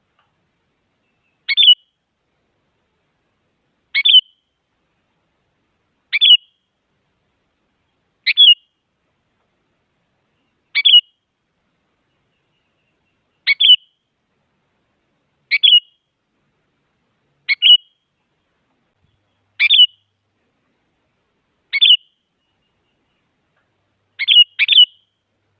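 Sooty-headed bulbul giving one short, sharp call about every two seconds, eleven times, then a quick double call near the end.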